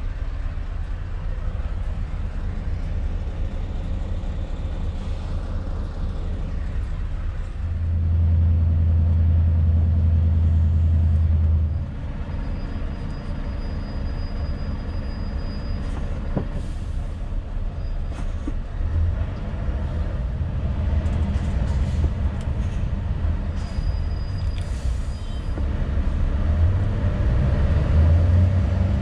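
Scania S650's 16-litre V8 diesel engine heard from inside the cab in slow traffic: a low steady rumble that swells louder for a few seconds about eight seconds in and again near the end.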